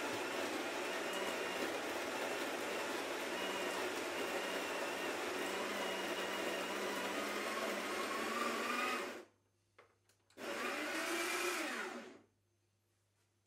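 Sage Smart Grinder Pro conical burr grinder running, grinding espresso beans into the portafilter. It stops about nine seconds in, then runs again for about two seconds and winds down.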